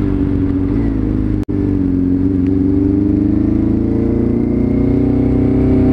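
Honda CB400 Super Four's inline-four engine running at low road speed, its pitch dipping as the bike slows and then rising steadily as it pulls away again. The sound drops out for an instant about a second and a half in.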